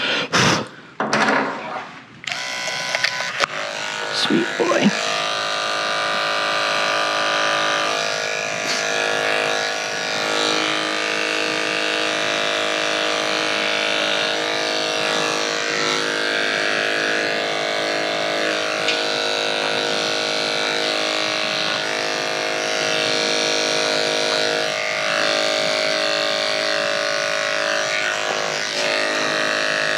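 A few clicks and knocks as a #7 blade is fitted to an electric dog-grooming clipper, which switches on about two seconds in and runs steadily with an even motor buzz, shaving the dog's coat.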